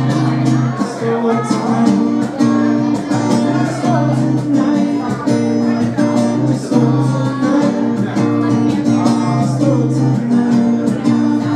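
Live amplified music with guitar and singing, loud and continuous with a regular beat.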